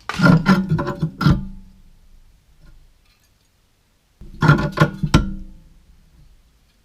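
Short burst of guitar music: two quick runs of strummed chords, about four seconds apart, each ringing out.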